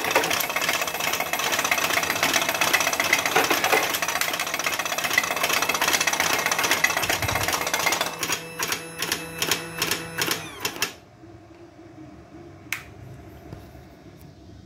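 Homemade revolver-cylinder automatic cigarette-making machine running, with a fast, dense mechanical clatter. About eight seconds in it slows to separate clacks, then stops about three seconds later. One sharp click follows a little after.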